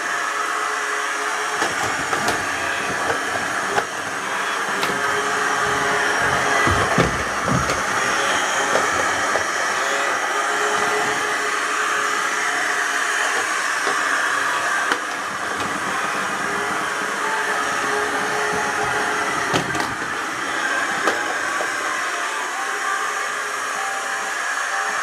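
clever&clean M-series 002 robot vacuum cleaner running with a steady whirring hiss, with a few scattered clicks and knocks and a brief low rumble partway through.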